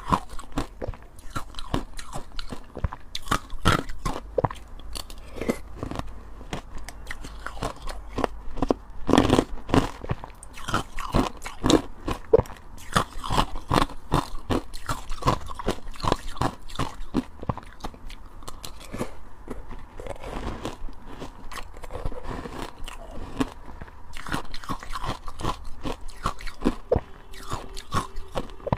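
Close-miked crunching of ice being bitten and chewed, a dense run of sharp, irregular crunches.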